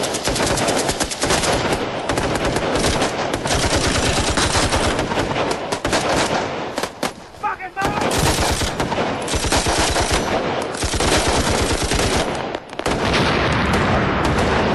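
Rapid automatic gunfire in long, dense bursts, dropping briefly about halfway through and again shortly before the end.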